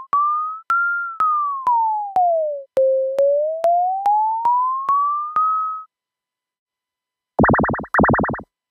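Daisy Pod synth's oscillator sounding a pure tone as a string of short beeps, about two a second, each dying away, its pitch gliding up, down to about an octave lower and back up as the knob is turned. Near the end come two short bursts of a buzzier synth tone with fast vibrato.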